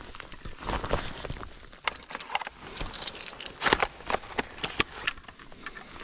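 Metallic clicking and jingling of brass rifle cartridges and a scoped bolt-action rifle being handled while loading. A quick run of small clinks comes about two to three and a half seconds in.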